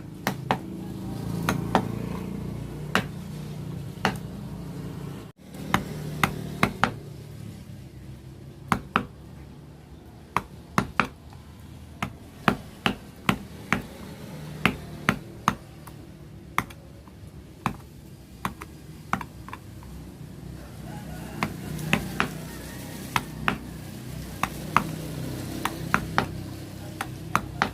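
Carving chisel struck with a mallet to cut into a wooden board: sharp taps that come unevenly, in runs of about one or two a second with short pauses, over a low steady background rumble.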